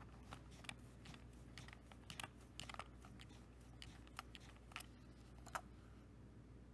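Faint, irregular clicks and taps of a plastic BASF Chrome Maxima II cassette shell being handled and turned in the fingers. The sharpest click comes a little past five seconds in.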